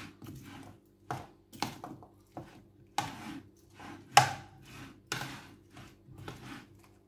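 A utensil tossing pasta salad in a large bowl: irregular clacks and scrapes against the bowl and the pasta, the loudest a little past four seconds in.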